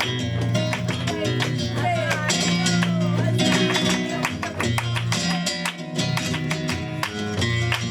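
Live flamenco tangos: flamenco guitar playing, with a singer's gliding voice in the first few seconds, over many sharp percussive strikes in a quick rhythm.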